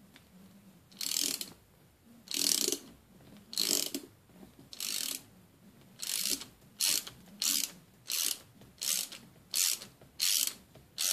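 Socket ratchet wrench clicking on each back-swing as it turns the press screw of a motorcycle chain breaker tool, pushing a rivet pin out through a chain link. The clicking strokes come about every second and a quarter at first, then quicker, about two a second, from about halfway on.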